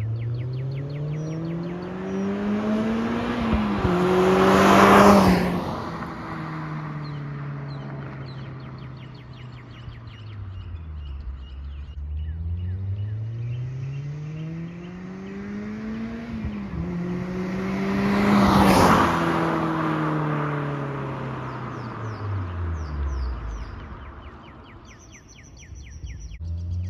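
Mazda MX-5 NC1's 2.0-litre four-cylinder, breathing through a catless Goodwin Racing header and Yonaka muffler, drives past twice. Each time the exhaust note climbs as the car accelerates, is loudest as it goes by (about five seconds in and again near nineteen seconds), then falls away as it recedes. Birds chirp faintly in the background.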